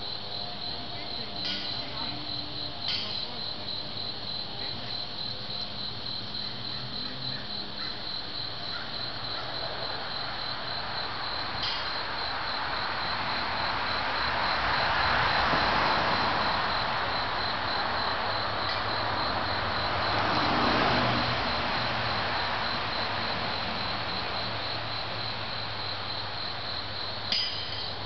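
Insects trilling steadily with a high, rapidly pulsing tone. In the middle a broad rushing noise swells and fades twice, and a few short sharp clicks sound, the sharpest near the end.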